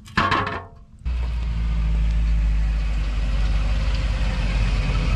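1964 Chevrolet Impala's engine running with a steady deep rumble, cutting in abruptly about a second in.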